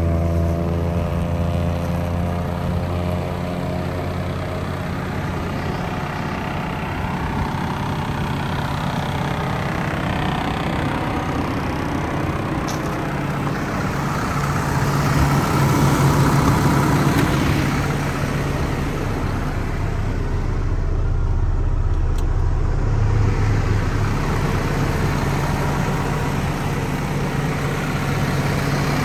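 A 2015 Isuzu NRR's four-cylinder turbodiesel engine running steadily at idle. The revs drop back to idle right at the start.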